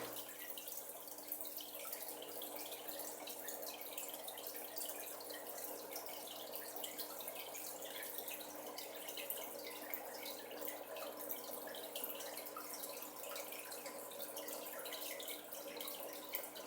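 Aquarium water trickling and splashing over a steady pump hum, with a dense crackle of small clicks and a few sharper clicks.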